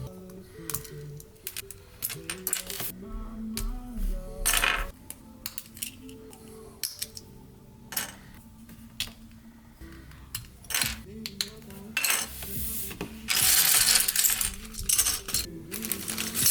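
Plastic Lego bricks clicking and clattering as a model is pulled apart and pieces are dropped, with a longer, denser rattle of many bricks near the end. Soft background music plays underneath.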